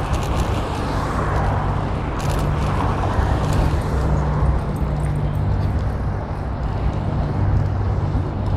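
Steady wind rumble on the microphone of a GoPro on a moving bicycle, heavy and low, with faint road and street noise under it.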